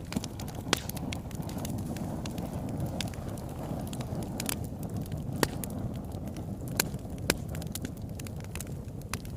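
Wood fire burning in a fireplace: a steady low rush of flames with constant small crackles and a handful of sharp, louder pops.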